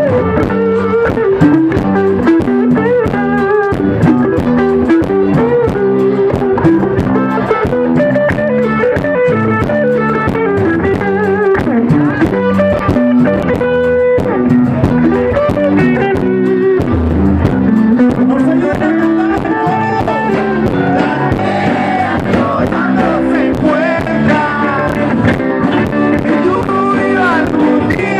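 Live rock-and-roll band playing: guitars and bass over a steady drum beat.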